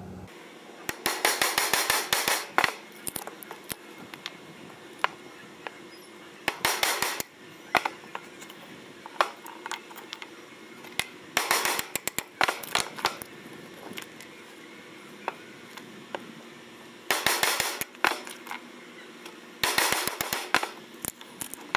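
Pine 2x4 stud block cracking and splitting as a flat-bladed tool is forced into it by hand: five bursts of sharp crackling, each about a second long, with scattered ticks between.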